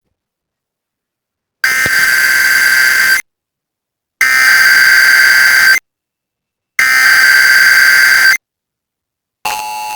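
Emergency Alert System SAME header tones: three loud, buzzing data bursts, each about a second and a half long and a second apart. Near the end the steady two-tone EAS attention signal starts.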